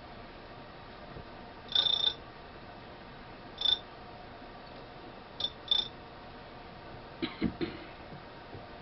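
Truing tool touching a spinning grinding wheel, giving brief high-pitched chirps about four times as it is fed across the wheel, over a steady low background. A few short knocks near the end.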